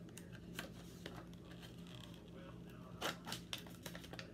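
Plastic packaging of a saliva collection tube being torn open and handled: faint crinkling and clicking, with a few sharper crackles about three seconds in.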